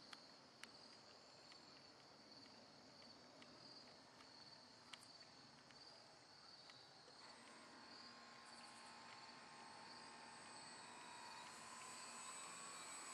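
Faint whine of an RC plane's electric motor and propeller, a steady tone that comes in about halfway and grows slowly louder as the plane flies closer. Under it, a faint even pulsing chirp of insects.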